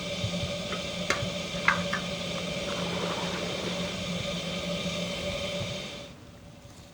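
Tea-ceremony kettle of water simmering with a steady hum and hiss, the sound called matsukaze, "wind through the pines". A few light clicks come one to two seconds in, and the sound drops away about six seconds in.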